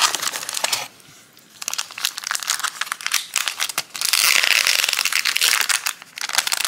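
Clear plastic packaging bag crinkling as it is handled, with a brief pause about a second in and the loudest crinkling a few seconds later.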